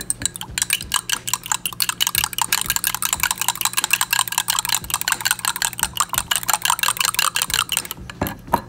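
Two raw eggs beaten briskly with a fork in a tumbler: rapid, regular clicking of the fork tines against the sides and bottom of the cup, with a soft slosh of the eggs. It stops shortly before the end.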